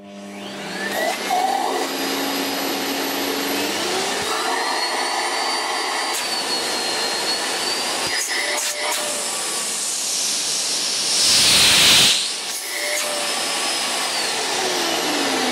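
Miele S7 Cat and Dog upright vacuum cleaner motor winding up to speed with a rising whine, then running steadily. About eleven seconds in there is a louder rush of air lasting a second or so, and near the end the whine falls as the motor slows.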